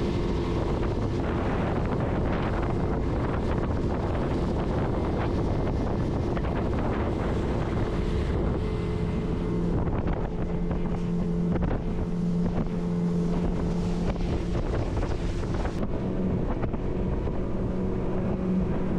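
Motorboat engine running steadily under way, with wind buffeting the microphone. The engine's hum firms up about halfway through.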